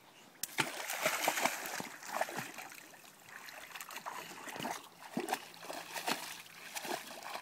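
Anatolian shepherd dog splashing in shallow, muddy pond water, nosing and stepping about, in irregular splashes and sloshes that start about half a second in.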